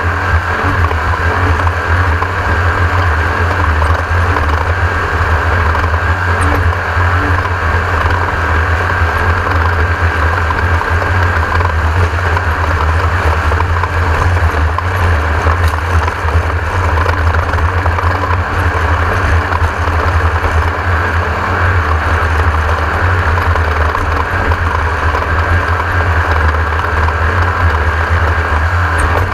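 Class 1600 off-road race car driving flat out, its air-cooled 1600cc VW flat-four engine droning steadily under load. The engine sound is mixed with a constant rushing noise.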